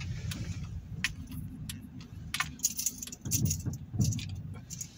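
Car engine running at low speed, heard from inside the cabin as a steady low hum, with scattered light clicks and jingles throughout.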